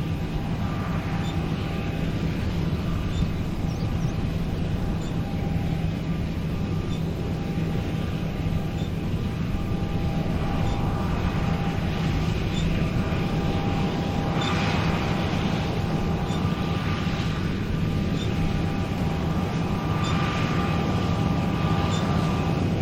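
Combine harvester running steadily as it harvests wheat: a low engine drone with a faint steady whine, and a couple of short swells of hiss in the second half.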